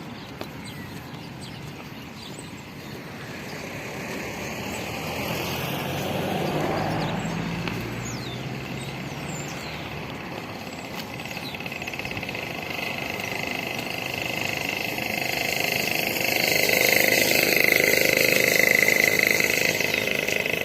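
Road vehicle noise: engine and tyre sound that swells and grows loudest in the last few seconds before easing off.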